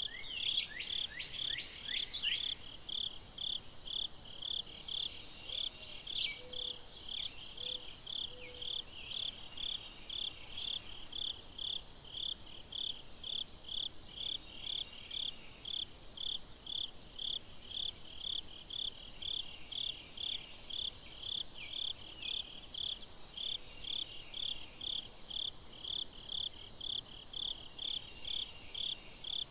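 An insect chirping in a steady, even rhythm of high-pitched pulses, about two a second. A quick series of short falling chirps sounds over it in the first couple of seconds.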